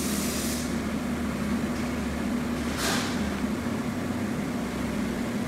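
Steady low machinery hum, with a brief hiss a little before the 3-second mark.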